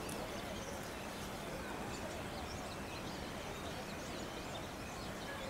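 Steady background murmur of indistinct voices, with faint bird chirps now and then.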